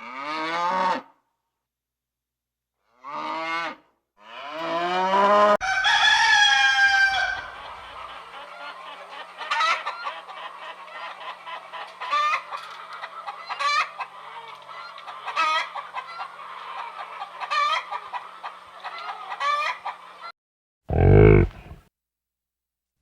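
A rooster crowing, with a long crow a few seconds in, followed by hens clucking with short repeated calls over a steady background. Near the end a single loud, deep animal call breaks in.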